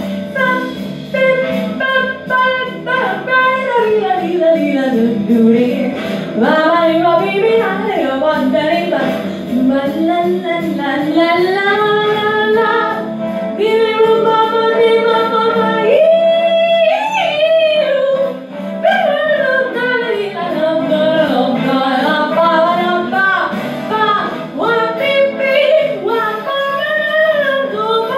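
A girl's voice singing without words into a handheld microphone, sliding up and down through long vocal runs and held notes, over a quieter backing track.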